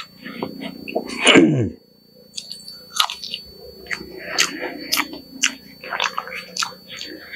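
A man chewing a mouthful of food, with wet smacks and clicks from his mouth. About a second in there is a short, loud vocal sound falling in pitch.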